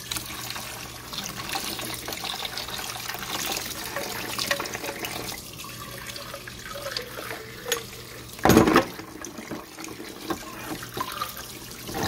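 Faucet water running through a disposal's drain pipe and splashing into a plastic bucket, flushing it to check for a clog; the water passes freely, so the pipe is not clogged. One brief loud knock about two-thirds of the way through.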